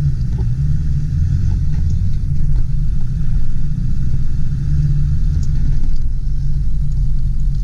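The 7.3-litre turbo-diesel engine of a 1999 Ford F-250 Super Duty running steadily with the truck in four-wheel drive. The sound sits low in pitch and swells a little in the middle.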